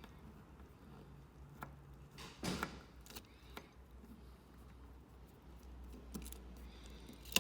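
Small screwdriver and hands working screws out of a plastic remote control's circuit board: light scattered clicks and taps, a short louder scrape about two and a half seconds in, and a sharp click at the end.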